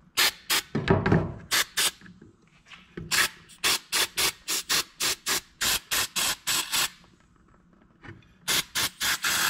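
Aerosol can of starting fluid sprayed in short hissing bursts into a carburetor float bowl, flushing out old two-stroke oil. The bursts come in quick runs of about four a second, with a pause near the middle and a last run of five or six bursts near the end.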